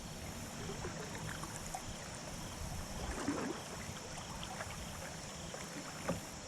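Steady rush of flowing river water, with a few light knocks and clicks about three seconds in and again near the end.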